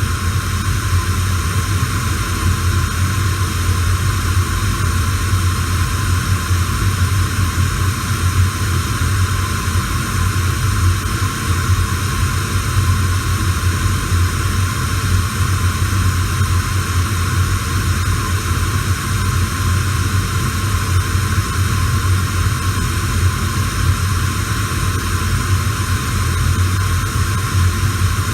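Radio static: a steady, even hiss with a low hum beneath it.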